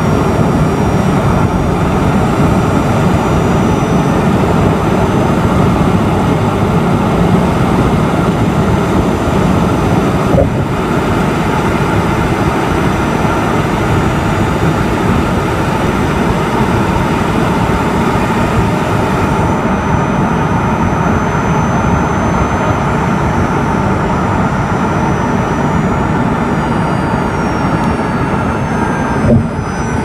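Honda Step WGN e:HEV hybrid powertrain (2.0-litre four-cylinder engine and electric drive motor) heard from inside the engine bay while cruising at about 60 km/h: a loud, steady drone with a thin high-pitched electric motor whine on top. Over the last third the whine slides down in pitch as the car slows and switches into EV mode.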